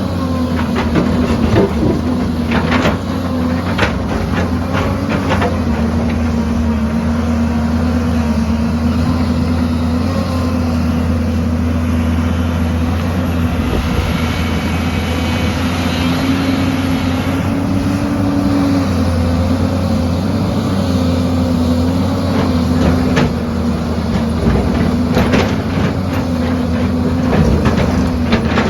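Diesel engine of a heavy excavator or bulldozer running steadily, its pitch wavering and rising briefly about two-thirds of the way through, with occasional sharp metallic knocks and clanks from the working machine.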